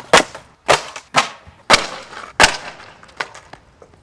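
Skateboard deck clattering on hard ground: a quick series of sharp wooden clacks, about five loud ones in the first two and a half seconds, then a few fainter ones.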